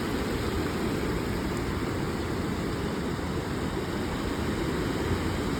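Steady low rushing noise of ocean surf with wind buffeting the microphone.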